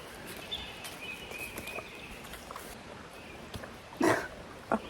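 Farm animals crowding close and feeding on apples, with one short, loud, breathy burst about four seconds in.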